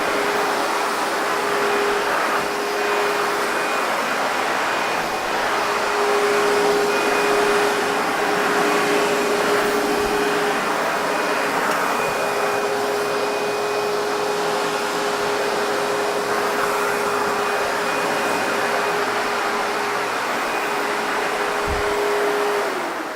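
ProTeam MegaVac backpack vacuum's motor running steadily, a rushing hiss with a steady whine; it is switched off near the end and begins to spin down.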